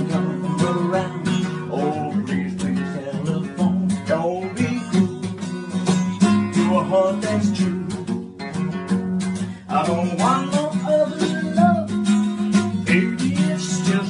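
Music: a song led by strummed acoustic guitar, with a singing voice.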